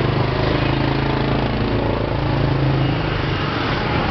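An engine running steadily close by, with a low even hum that fades about three seconds in, over steady street noise.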